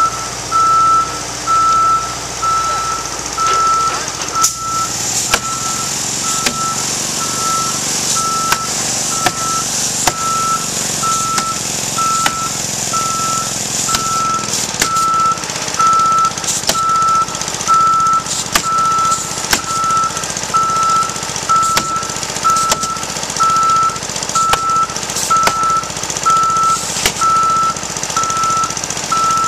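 Boom lift's warning alarm beeping steadily, about one high beep a second, with scattered sharp knocks from roofers nailing down felt underlayment.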